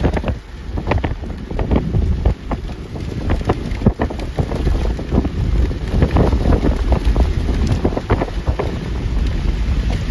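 Strong storm wind gusting and buffeting the microphone, a heavy low rumble with frequent sharp crackles.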